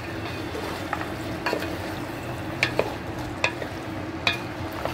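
Wooden spatula stirring chopped potatoes, aubergine and green peas in a steel pot over a low, steady sizzle, with about six sharp knocks as the spatula strikes the pot's side.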